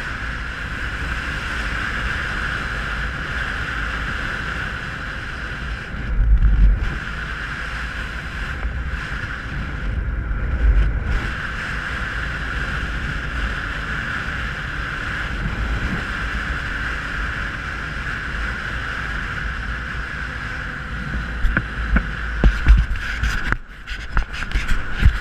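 Dirt bike ridden at speed: engine running steadily under heavy wind rush on the microphone. Louder gusts of low buffeting come about six and ten seconds in, and an uneven stretch of thumps comes near the end.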